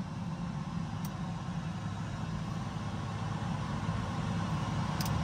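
Cirrus SF-50 Vision Jet's Williams FJ33 turbofan running at idle just after start, heard from inside the cockpit as a steady low rumble that grows slightly louder. It is the post-wash run that dries the engine out after a fresh-water compressor rinse.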